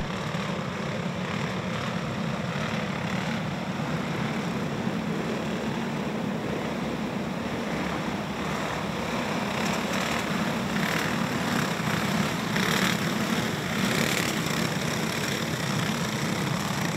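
A field of dirt-track go-karts with small single-cylinder clone engines running together at low speed on the pace laps before the green flag: a steady engine drone that brightens a little partway through.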